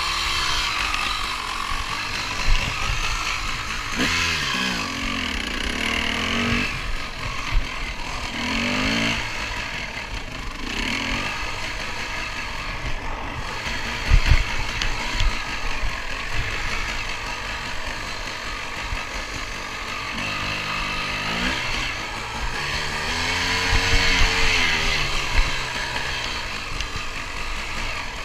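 KTM 250 EXC enduro motorcycle engine revving up and falling back again and again as it is ridden around a muddy track, with steady wind noise over it and a few sharp knocks, the loudest about 14 seconds in.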